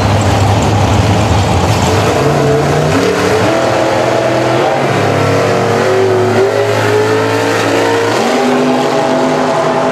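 Two Super Gas drag cars' V8 engines, revving at the starting line and then at full throttle as they launch down the strip. The pitch climbs and steps down at a gear change about eight seconds in.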